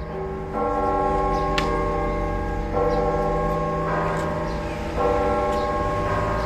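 Church bells ringing: several bells of different pitches, struck afresh four times, each stroke ringing on into the next.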